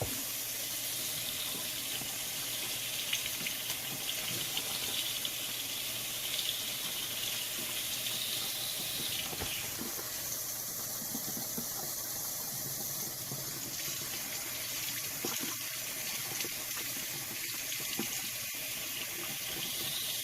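Tap water running steadily into a sink, with a few faint knocks.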